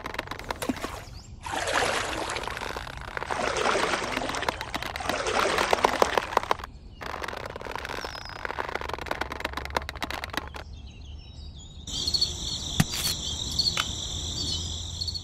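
Water splashing and sloshing in a small model pond in two long stretches, with many small crackles, as a miniature lift net is worked in it. Near the end, birds chirp in high, quick notes.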